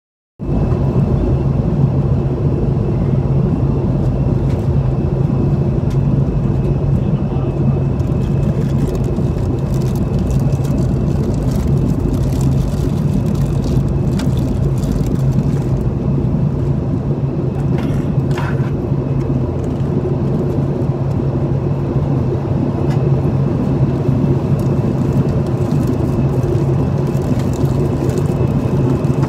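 Steady cabin noise inside a Boeing 737-800 in flight: the drone of its CFM56 turbofan engines and rushing airflow, with a constant low hum.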